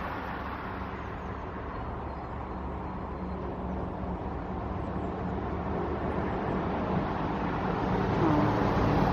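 Road traffic: a motor vehicle's engine running with a steady low hum, growing louder toward the end.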